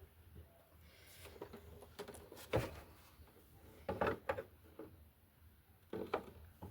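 Mulching plug being fitted to the deck of an Etesia Pro 46 mower: a few separate knocks and clunks of handling as it is pushed into place, spaced about a second and a half apart.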